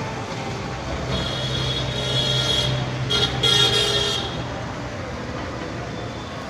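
Road traffic noise with a vehicle horn honking: one long honk about a second in, then a shorter one about three seconds in.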